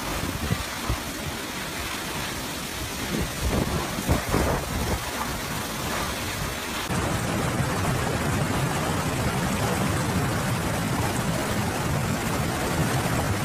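Storm wind and heavy rain, gusting hard with a few louder knocks; about seven seconds in it changes to a steadier, louder, deeper rush of rain and wind.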